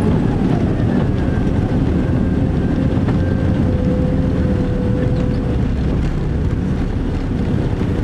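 Steady rumble and roar inside the cabin of a Boeing 767-300 on its landing rollout, the engines and wheels running on the runway as the jet slows with its ground spoilers up.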